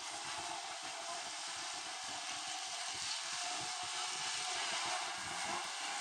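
Dirt-track race car engines running as the field circles the oval, a steady noise with no single car standing out.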